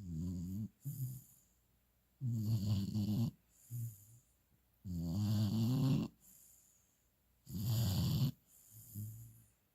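Sleeping puppy snoring: four rhythmic snores, about one every two and a half seconds, each lasting about a second, most followed by a shorter, softer breath.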